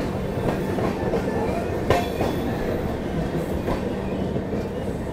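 Brahmaputra Mail express train running: a steady rumble with wheel clicks over the rails, a steady hum beneath, and one sharper click about two seconds in.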